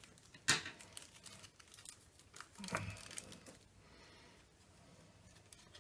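Foil trading-card booster pack crinkling and being torn open by hand, with a sharp crackle about half a second in and scattered rustles for the next few seconds.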